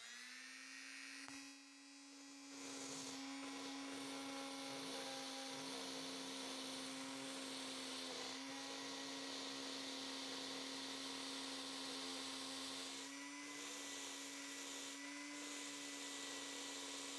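Electric drill running steadily, spinning a 3D-printed plastic ball bearing with steel BB balls inside, held by hand on its outer race. It makes a steady whine with a hiss above it, which grows a little louder about two and a half seconds in.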